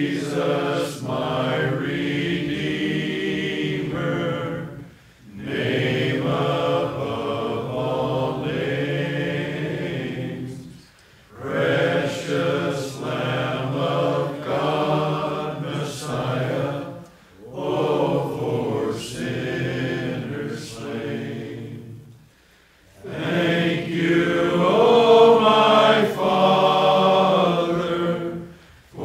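A choir singing slowly in long held phrases of about five or six seconds each, with short breaks between them.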